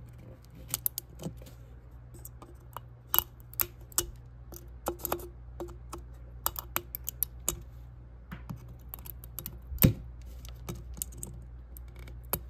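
Flush cutters snipping and snapping away 3D-printed PLA support material from a threaded neck: a string of irregular sharp clicks, with one louder snap near the end.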